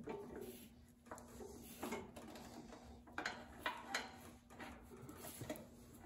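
Faint, scattered light clicks and clinks of hands handling battery cables and terminal hardware on a garden tractor's battery.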